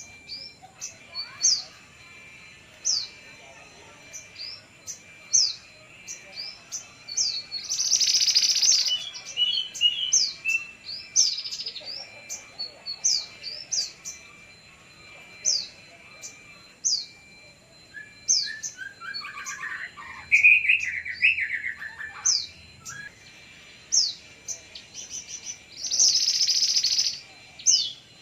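Female mantenan songbird calling busily: many short, sharp high chirps in quick succession, with two loud harsh bursts about eight seconds in and near the end, and a run of lower, falling notes in the middle.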